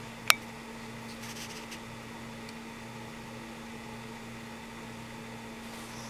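Old pug snoring in its sleep: a low, rhythmic snore that swells and fades over a steady hum. A single sharp click about a third of a second in is the loudest sound.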